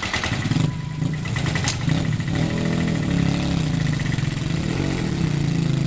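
Engines of a small quad bike and a Grillo 131 walking tractor running together under load as the two pull against each other on a tow rope. The engine drone is steady, and its pitch wavers up and down about halfway through.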